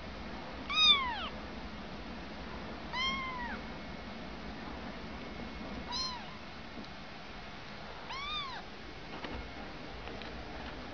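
Young kitten meowing four times, two to three seconds apart, each meow rising and then falling in pitch; the first is the loudest.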